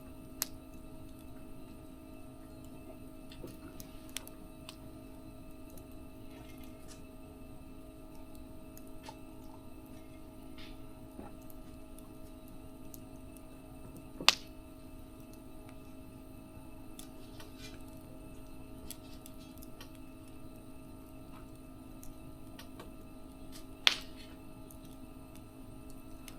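Wood fire burning with faint scattered crackles, and two sharp pops, one about halfway through and one near the end. A steady low hum runs underneath.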